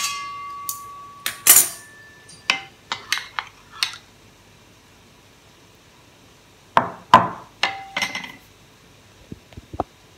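Metal spoon clinking and scraping against a shallow stainless steel pan while stirring thin rice-flour batter. The first strike leaves a ringing tone for over a second, and several clinks follow. After a pause about halfway through comes another run of clinks, then a few light ticks.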